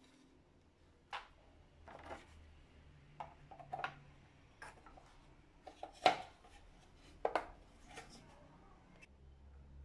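A Mazda 626's clear plastic turn-signal housing being handled and pressed against a tabletop: a run of irregular clicks and knocks of plastic, the loudest about six seconds in.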